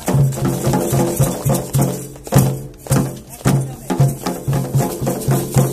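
Drum-led music with a steady beat of about two strong strokes a second and sharp clacking percussion over it.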